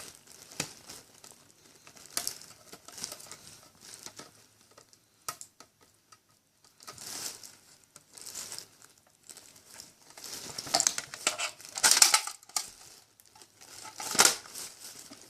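Hands handling and fitting plastic parts of an Xbox 360 console: irregular rustling, scraping and small clicks, loudest in a cluster near the end.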